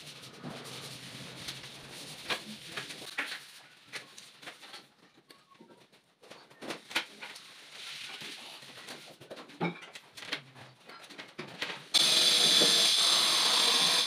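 Scattered light knocks and clicks from handling the cabinet panels and a tape measure, then near the end about two seconds of a loud, steady, high-pitched noise that starts and stops abruptly.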